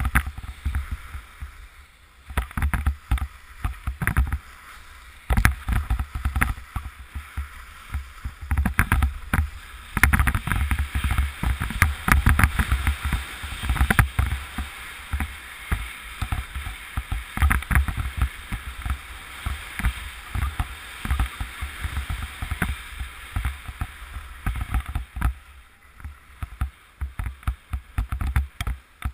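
Skis running and carving on groomed snow, a rough irregular scraping hiss, with wind buffeting the microphone as a heavy low rumble. The sound dies down near the end as the run ends.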